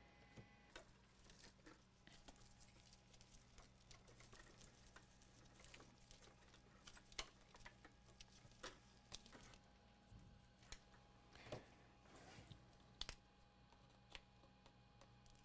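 Near silence: a faint steady hum with scattered faint clicks and taps of small parts being handled at a workbench.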